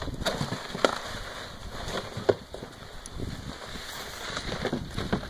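Irregular crunching and clicking on packed snow from a plastic sled being dragged and pigs walking beside it, with a couple of sharper knocks about one second and two seconds in.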